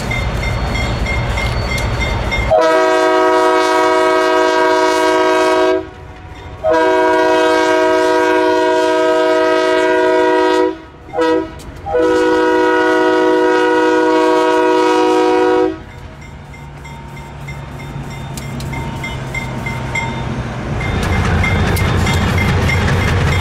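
GE B23-7 diesel locomotive blowing its Leslie air horn in the grade-crossing pattern: two long blasts, a short one, then a long one. Before and after the horn its diesel engine rumbles, growing louder near the end as the locomotive passes close, and a bell dings steadily in the background.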